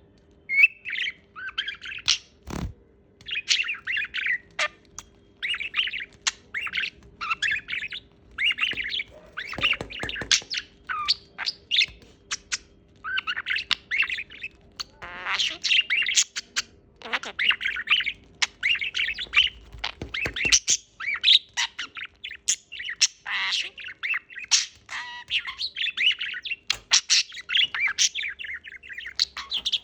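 Pet parrot chattering, chirping and squawking in quick bursts of short calls, with no clear words.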